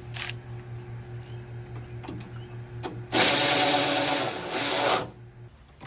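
A power tool runs for about two seconds, loud and whirring, over a steady low hum, with a few light clicks before it starts.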